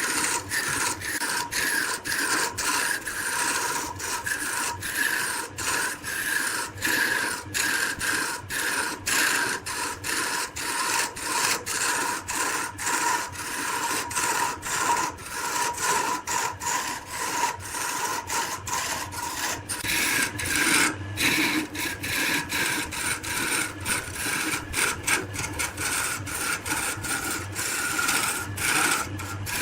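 Turning tool scraping and cutting wood spinning on a lathe, in short repeated strokes with brief breaks between them.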